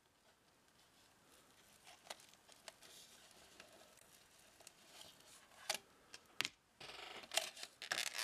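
Thin clear plastic clamshell packaging being handled and opened by hand: faint crinkling with a few sharp clicks and snaps, then a longer rustle near the end as the film is peeled away.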